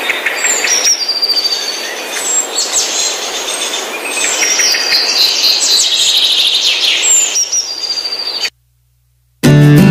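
Small birds chirping and twittering, with quick falling whistles and trills, over a steady background noise. This stops suddenly about eight and a half seconds in, and after a short silence acoustic guitar music begins near the end.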